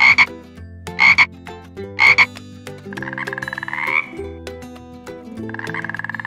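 Frog croaking: three short loud croaks about a second apart, then two longer buzzing calls that rise slightly in pitch.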